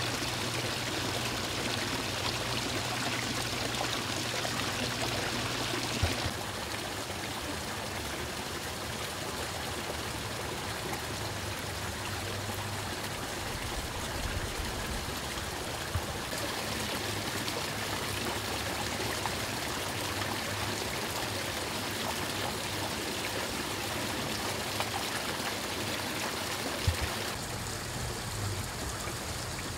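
Steady trickle and splash of running water in a garden pond, as from a pump-fed outflow, dropping slightly after about six seconds and changing again near the end, with a few faint clicks.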